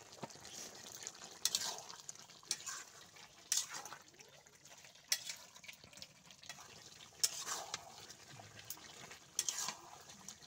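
Metal spatula stirring and scraping through duck curry in a large metal pot, a scrape every second or two, over a steady sizzle of the thick sauce cooking down.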